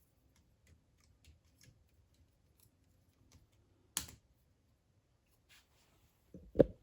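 Plastic K'nex model parts being handled. There are scattered light clicks, a sharp click about four seconds in, and a louder knock near the end.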